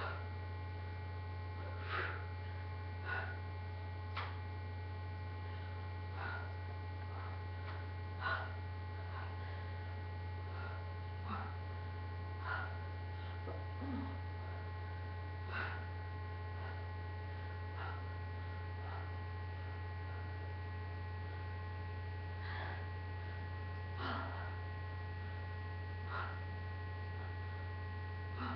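Steady low electrical mains hum, with a few thin steady tones above it. Faint brief soft sounds come every second or two from a person doing toe-touch crunches on a floor mat.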